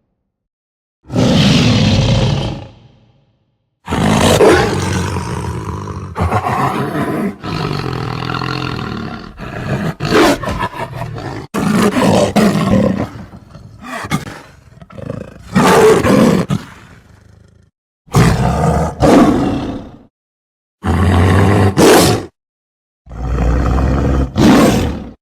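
A string of lion roars. They are edited together, each one starting and cutting off abruptly, with short silences between several of them. The audio is processed.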